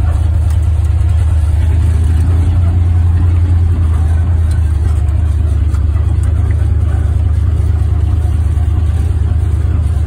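1961 Ford F-250 pickup's engine running steadily as the truck drives, a loud, deep rumble heard from inside the cab.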